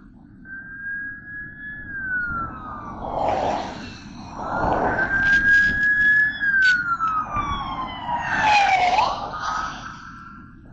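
An emergency vehicle's siren wailing, its pitch slowly sliding up and down twice, over steady traffic noise with the rush of passing vehicles.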